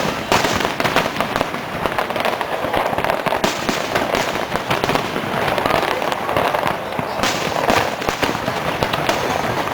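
Fireworks display: a dense, continuous run of small bangs and crackling, with louder flurries every few seconds. Voices of onlookers sit underneath.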